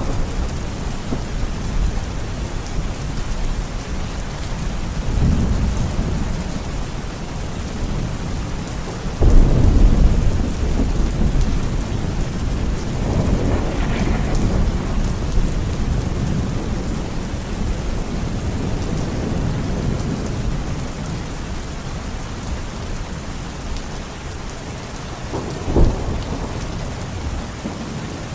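Steady rain falling, with thunder rumbling through it: a loud clap comes suddenly about nine seconds in and rolls away over several seconds, and a shorter sharp crack comes near the end.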